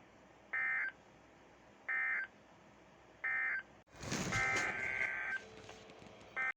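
Three short bursts of warbling SAME digital data tones about a second and a half apart, the end-of-message code that closes an Emergency Alert System broadcast. A click follows, then a longer burst of the same kind of data tones over hiss, and another burst starts at the very end.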